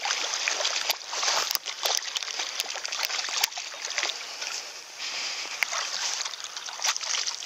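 A hooked rainbow trout thrashing and splashing at the water's surface as it is landed, with scattered sharp clicks and knocks.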